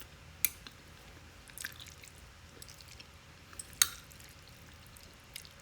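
A few light clicks and taps of eating utensils against a plate while hot shrimp are moved aside to cool, the sharpest nearly four seconds in.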